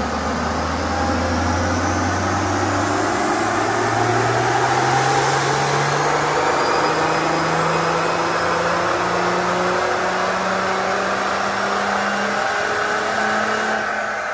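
Mercedes diesel engine with a Holset turbo, swapped into a 1988 Land Rover Ninety, pulling at full load on a rolling-road dyno. The engine note climbs steadily as the revs rise, with a high whine rising in pitch through the first half, and the run eases off near the end.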